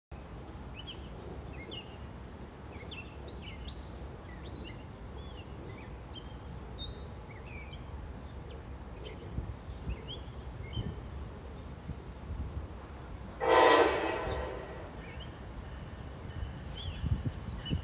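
One short train horn blast from the approaching Amtrak ACS-64 electric locomotive, about three-quarters of the way in, over a steady low background rumble and many short bird chirps.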